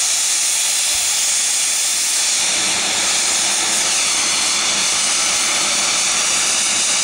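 Southern Railway N15 'King Arthur' class 4-6-0 steam locomotive 30777 blowing off steam in a loud, steady hiss, the sound of its boiler safety valves lifting at full pressure.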